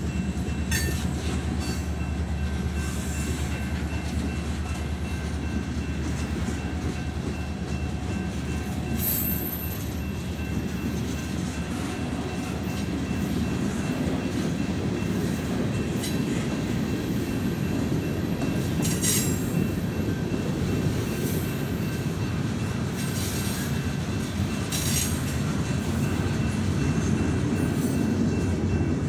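Freight cars (tank cars, then covered hoppers) rolling past at close range: a steady, loud rumble of steel wheels on the rails, with a few brief high-pitched wheel squeals.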